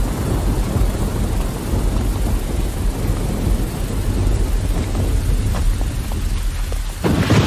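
Thunderstorm: rain falling with a continuous low rumble of thunder, then a sharp thunderclap about seven seconds in that rolls away.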